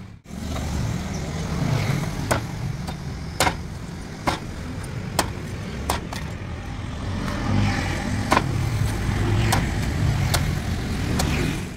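A heavy cleaver chopping into the fibrous green husk of a young coconut on a wooden block: a sharp chop roughly every second, unevenly spaced, over a steady low rumble.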